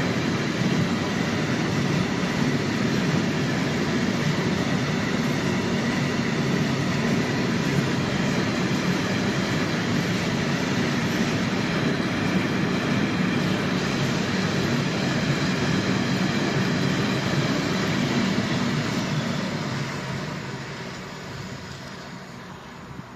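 Freight train of tank wagons rolling past: a steady noise of wheels running on the rails, which fades away over the last few seconds as the end of the train passes and recedes.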